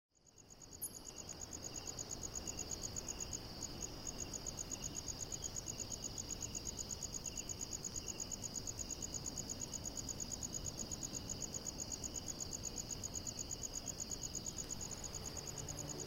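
A chorus of crickets chirping in a fast, even pulse, with a fainter, lower insect trill beneath, fading in over the first couple of seconds.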